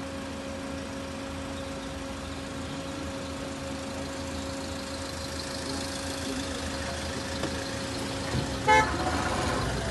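A car running with a steady hum. Near the end comes a single short, loud car horn toot.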